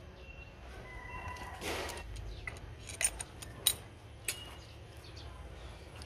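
A rooster crowing, one call about a second in, over a steady low rumble. Three sharp metal clinks follow a couple of seconds later as hand tools are handled on the steering rack.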